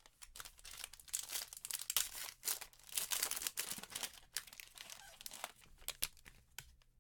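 Crinkly plastic wrapping being torn and handled in quick irregular crackles, as trading-card packaging is opened.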